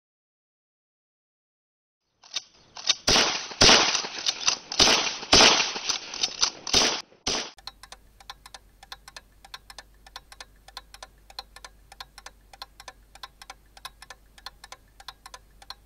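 About two seconds of silence, then a run of loud, sharp cracks for about five seconds. These give way to faint, rapid, evenly spaced ticking over a low hum for the rest.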